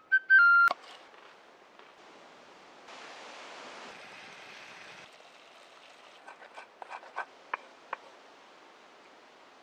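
Wood fire burning in a stacked-stone rock oven, a soft hiss that grows louder for about two seconds near the middle, over faint woodland ambience. A short run of light clicks and taps follows near the end.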